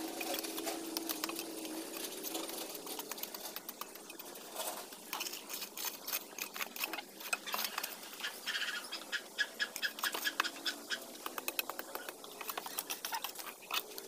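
Irregular scraping and clicking of a small hand tool digging and scraping packed soil and grit along the base of a wire-mesh bird cage. A low steady hum fades out in the first few seconds.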